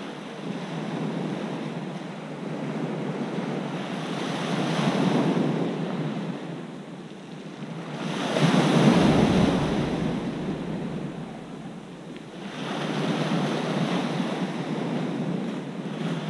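Small sea waves breaking and washing onto a pebble shore, swelling and fading about every four seconds; the loudest surge comes about nine seconds in.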